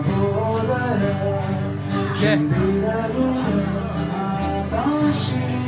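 Live acoustic guitars strummed with a man's voice singing a melody over them, through a small PA.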